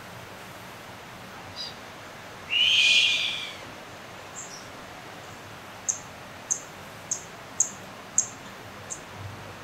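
Crested serpent eagle giving one loud call about a second long, dropping slightly at its end. Later comes a run of about six short, high chirps, roughly every half second.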